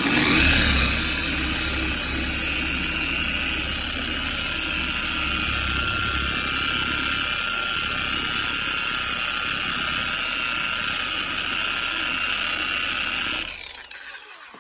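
Orbital sander running steadily with a Harbor Freight Hercules film sanding disc on a car body panel, a low hum under a strong hiss, winding down near the end.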